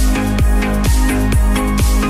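Electronic dance music with a steady beat of heavy bass strikes, about two a second.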